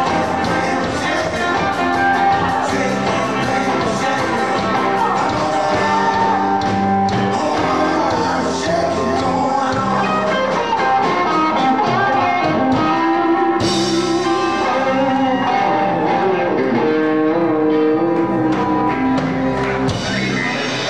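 Live rock and roll band playing with electric guitars and drums; the song stops just before the end.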